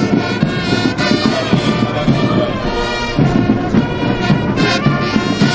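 Military brass band playing a march for troops marching past.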